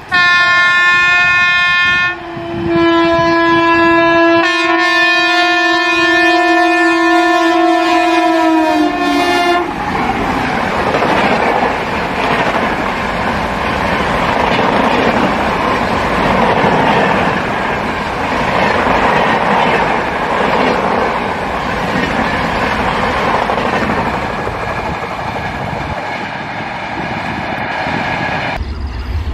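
An Indian Railways electric locomotive sounds its air horn, a short blast and then a longer one lasting about seven seconds. Its passenger coaches then rush past with steady wheel noise and clatter on the rails, and a fainter horn sounds again near the end.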